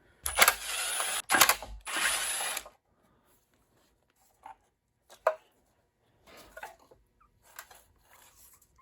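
A power driver spinning out the bolts that hold a small Honda engine's recoil starter, in three short runs over the first couple of seconds. This is followed by a few light clicks and taps of metal parts being handled.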